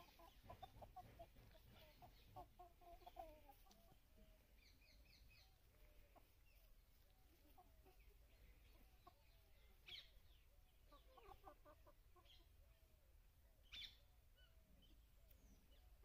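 Faint soft clucking calls from a flock of young desi chickens, about two months old, foraging in grass. Two short, sharper, louder calls stand out, about ten and fourteen seconds in.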